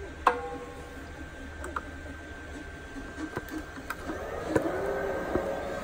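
Antminer S9 ASIC miner being powered up: a sharp click with a brief ring about a third of a second in as the power cord goes in, then a few lighter clicks. From about four seconds its cooling fans start with a rising whir, over the steady hum of other mining machines running.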